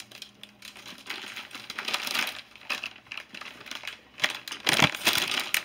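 Plastic snack bags crinkling and rustling as they are handled, with irregular light clicks and knocks.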